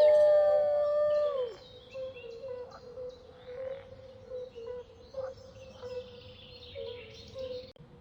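A wolf howling: one long, steady note that falls away and ends about a second and a half in. Birds chirping follow, with a repeated short, low call.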